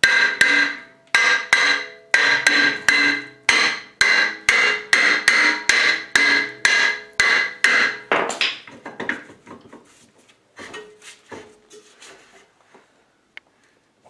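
A hammer striking a 2014 Subaru Outback's rusted rear brake rotor about twenty times, roughly two blows a second, to break the seized rotor free. Each blow leaves the cast-iron rotor ringing like a bell. The blows stop about eight seconds in, followed by a few lighter knocks.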